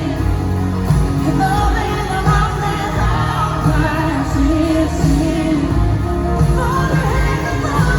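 Live country-pop band music with a woman singing, a full band with a heavy low end under the vocal melody.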